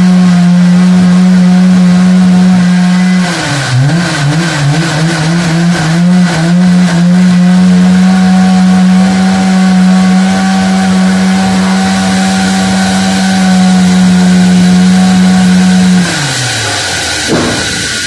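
Üstün Karlı band sawmill running as its band blade cuts through a large walnut log, a loud steady hum. About three seconds in the pitch dips and wavers for a few seconds as the blade works through the log, then holds steady. Near the end the pitch falls away and the machine runs down and stops.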